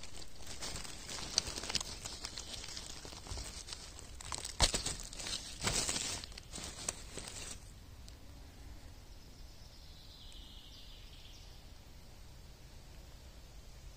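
Dry fallen leaves rustling and crackling as a hand brushes them aside from a porcini mushroom, with a few sharper crackles; it stops about halfway through, leaving only a quiet outdoor background.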